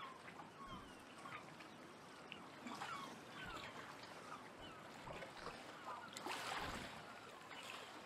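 Small waves lapping and gurgling against a rock embankment at the water's edge, with a louder splash about six seconds in.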